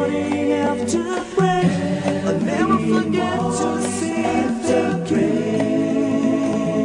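Vocal music sung a cappella: several voices in choir-like harmony holding a melody.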